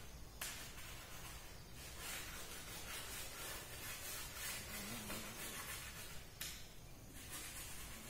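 Chalk rubbing on a blackboard in repeated scratchy strokes as an area is shaded in with colour, coming in several spells.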